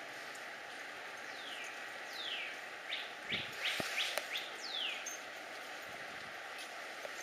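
A bird calling from the trees: a run of short, quick calls, each sliding downward in pitch, for a few seconds in the middle, over a steady background hiss.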